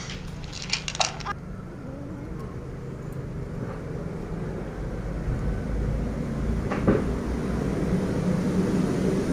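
Low, steady rumble of a motor vehicle's engine that grows louder over the last few seconds. A few faint clicks come about a second in, and a single sharp knock comes later.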